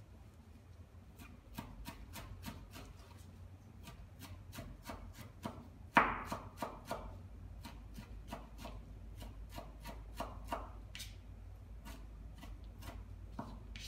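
Chef's knife chopping fresh herbs on a wooden cutting board: quick, even knocks of the blade on the board, about three a second, with one much louder knock about six seconds in.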